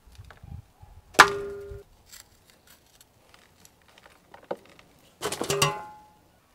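Baked clay crust being chipped off with a metal tool and knocked into a large metal basin. A sharp knock sets the basin ringing about a second in, a faint tap follows, and a quick cluster of knocks with more ringing comes near the end.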